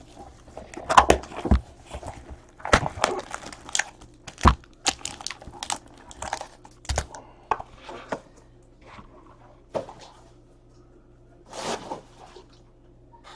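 Packaging and trading cards handled by hand: irregular crinkling, tearing and crackling as the wrapping of a box of football cards is opened, with sharp clicks and taps. The sounds come thick at first, then more sparsely.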